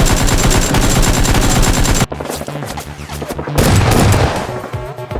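Rapid automatic gunfire, a dense stream of shots that cuts off suddenly about two seconds in. Background music follows, with a loud low thud about four seconds in.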